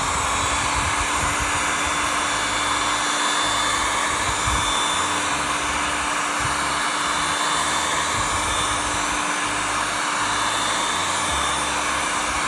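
Hot-air heat gun blowing steadily, a loud rushing hiss over a constant motor hum. It is heating the phone's screen to loosen the screen adhesive before prying it open.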